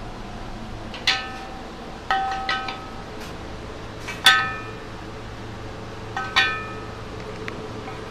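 Wooden segments of a wood-centred handcar wheel being set into a metal wheel rim: about half a dozen knocks, each making the rim ring briefly with a bell-like tone.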